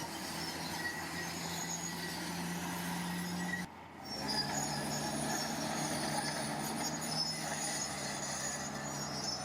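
Heavy earthmoving machine's diesel engine running steadily, with high-pitched metallic squeals over it. The sound drops out briefly a little over a third of the way in and picks up again with the engine at a slightly different pitch.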